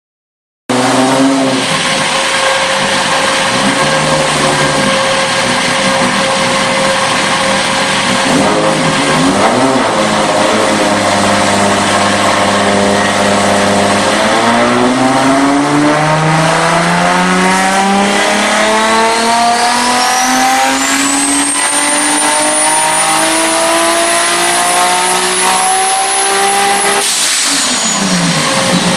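Toyota Supra MK4's single-turbo 2JZ-GTE 3.0-litre inline-six running at a steady low speed with a couple of short rev blips, then pulled hard in one long, smooth climb in revs over about thirteen seconds. A high whistle rises with it and then holds, until the throttle closes suddenly near the end and the revs fall away.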